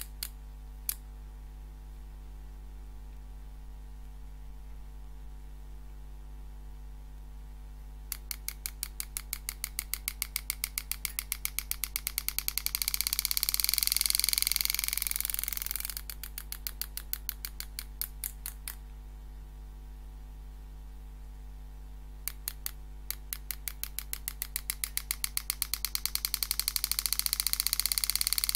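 Super EZ Graver handpiece hammering a 120-degree carbide graver into 304 stainless steel. It goes in two runs of strikes: the first, about eight seconds in, starts as separate taps that speed up into a fast continuous buzz, then slows and stops. The second, a few seconds later, speeds up again. A steady electrical hum lies underneath.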